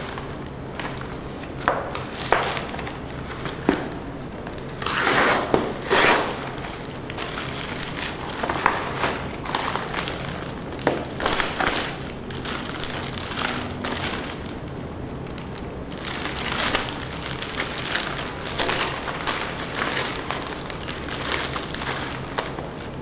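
A FedEx Express paperboard envelope being handled and torn open, in irregular rustles and rips that are loudest about five and six seconds in. Near the end a clear plastic bag crinkles as it is pulled out of the envelope.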